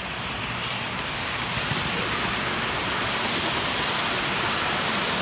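O gauge model freight train rolling past close by: a steady rumble and hiss of metal wheels on three-rail track, growing louder over the first two seconds as the cars come alongside.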